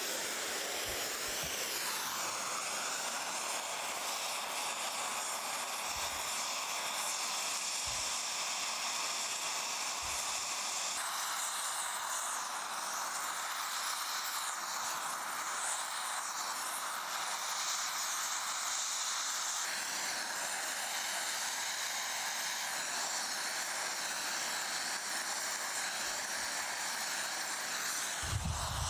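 Oxy-fuel brazing torch flame hissing steadily while it heats the ground-out crack in a cast-iron plate and melts brazing rod into it.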